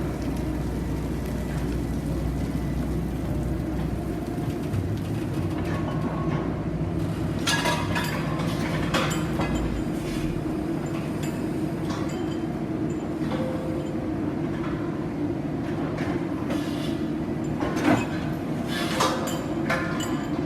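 Soilmec SR-series drilling rig running steadily, its engine and hydraulics giving a constant drone, with scattered metallic clanks from the drill tooling, the loudest near the end.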